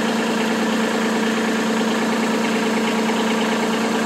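Kubota B2301 tractor's three-cylinder diesel engine idling steadily.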